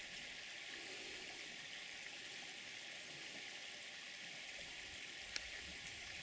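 Faint steady high hiss with one sharp click about five seconds in.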